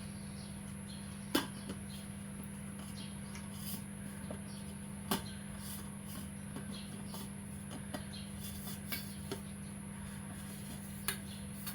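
A few sharp clicks and lighter taps from handling a stainless-steel tumbler and its parts, spaced several seconds apart, over a steady background hum.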